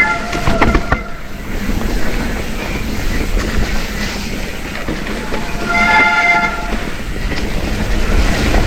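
Mountain bike riding down a rough, wet trail: a steady rush of tyre and wind noise with rattling over rocks. About six seconds in, the wet disc brakes give a short, several-toned squeal, like a horn.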